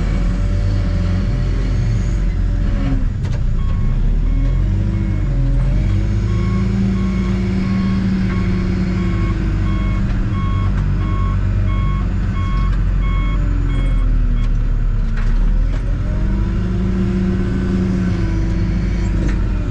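Backhoe's diesel engine revving up and down repeatedly as it works under load. From a few seconds in until about two-thirds through, its backup alarm beeps at a steady pace while it reverses.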